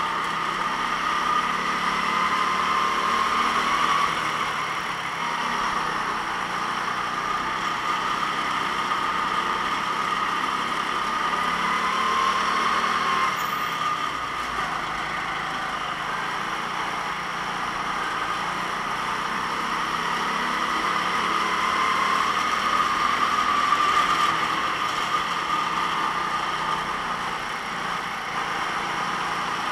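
Go-kart engine running continuously, its pitch rising and falling every several seconds as the kart accelerates and lifts through corners of the circuit.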